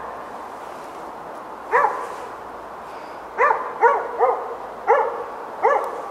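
A dog barking: six short barks, spaced irregularly, several in quick succession in the second half.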